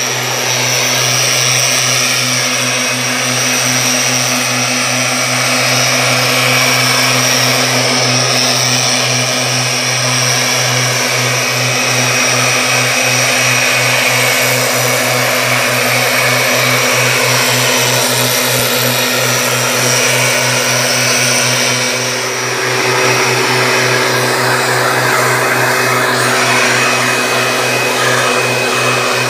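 Backpack mist blower's small two-stroke engine running steadily at high speed, with the hiss of the air blast from the blower tube; the engine note shifts slightly about two-thirds of the way through.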